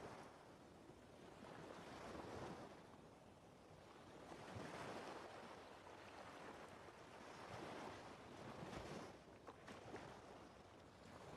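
Faint rushing noise that swells and fades every two to three seconds.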